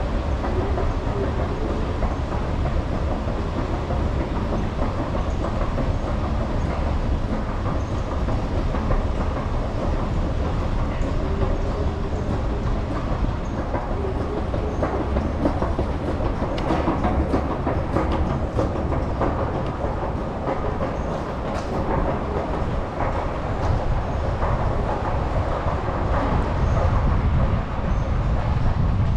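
Long metro escalator running: a steady low rumble and rattle of the moving steps, echoing in the tunnel, with a scatter of sharp clicks partway through and the rumble growing a little louder near the end.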